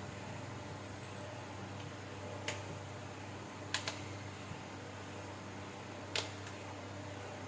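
A few sharp clicks from tools and plastic parts handled while an Oppo K1 phone is taken apart: one, then a quick pair, then one more. A steady hum runs underneath.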